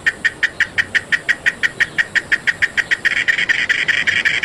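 Cicada singing: a fast train of sharp pulses, about six a second, that about three seconds in runs together into a continuous buzz.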